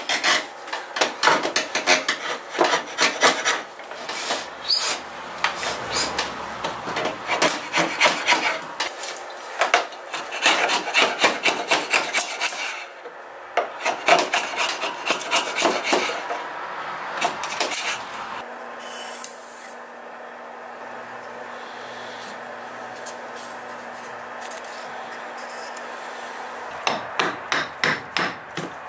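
A hand file rasping across a wooden knife handle clamped in a wooden vise, in repeated strokes about two a second, then a softer, steadier rubbing. Near the end, sharp knocks of a hatchet being struck into wood.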